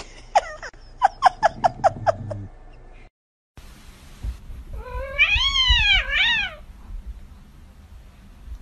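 A cat meowing: one long drawn-out meow that rises and falls in pitch, then a shorter one, about five seconds in. Earlier, a quick run of about seven short chirps.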